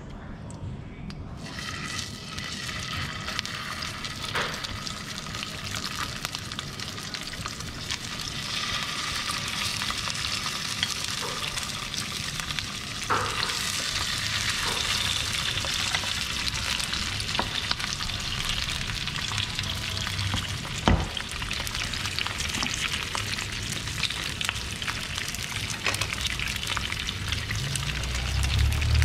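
Fish steaks sizzling as they fry in hot cooking oil in a non-stick pan, a steady hiss that starts about a second in. Now and then a sharp click as wooden chopsticks knock the pan while turning the pieces.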